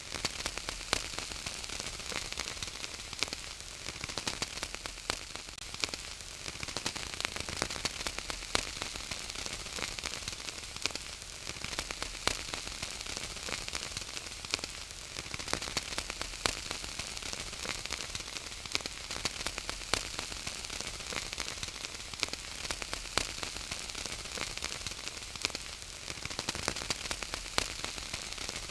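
Wood fire crackling in a fireplace: a steady stream of small sharp pops and snaps over a soft hiss.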